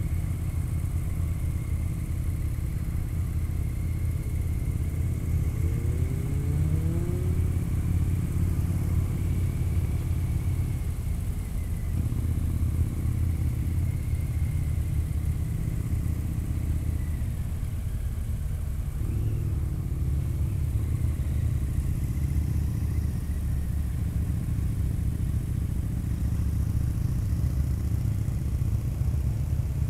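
Harley-Davidson touring motorcycle's V-twin engine running under way at road speed, a steady low rumble. About six seconds in there is a brief rising rev, and the engine note drops off and picks up again twice, near the middle and about two-thirds of the way through, as with throttle changes or gear shifts.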